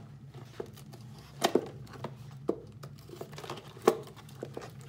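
Craft knife cutting into the thin wall of a plastic drink bottle: irregular crackling with a few sharp clicks of the plastic, the loudest near four seconds in.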